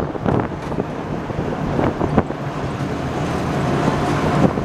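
A World War II amphibious duck vehicle driving along a trail: its engine running steadily under wind noise, with a few sharp knocks and rattles from the body.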